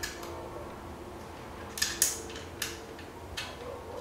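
Sharp handling clicks as a battery box is fitted by hand onto the rail of an airsoft M4's metal RIS handguard: a cluster of clicks a little under two seconds in, the loudest just after, and a couple more farther apart near the end.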